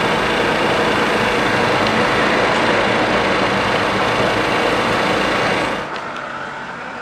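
Loud engine running steadily, dropping away sharply to a quieter background near the end.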